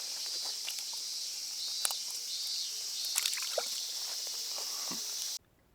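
Outdoor pond-side ambience: a steady high hiss with scattered small clicks and light water sounds, cutting off abruptly near the end.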